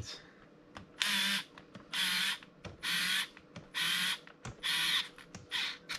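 Cordless electric screwdriver run in five short bursts, about one a second, driving a self-threading screw into a hole in the back of the grinder motor.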